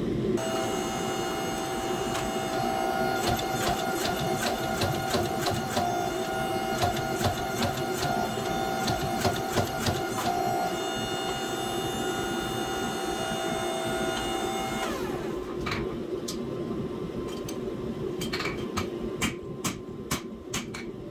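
Power hammer running with a steady motor whine, its ram striking the hot hatchet blank in a quick run of blows from about 3 to 10 seconds in as the edge is thinned. The motor whine drops away around 15 seconds, and then hand-hammer blows ring on an anvil near the end.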